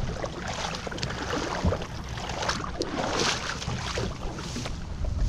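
Irregular rustling and scraping as a plastic kayak is pulled out of shallow water and dragged up onto a grassy bank, with footsteps through the grass.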